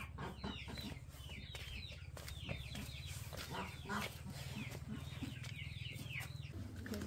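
Chickens calling: a long run of quick, high, falling calls, over a steady low hum that drops a little near the end.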